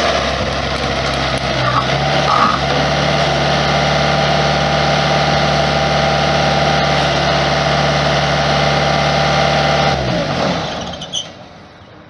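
Bobcat T190 compact track loader's Kubota four-cylinder diesel running at a steady speed. About ten seconds in it is shut off and winds down.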